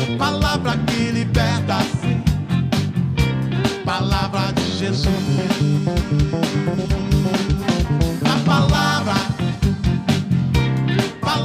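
Live band music with a steady beat: drums, bass and guitar playing.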